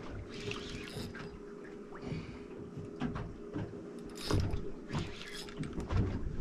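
Fishing reel being cranked against a heavy hooked fish, its gears clicking and grinding in irregular spurts. A faint steady hum runs underneath.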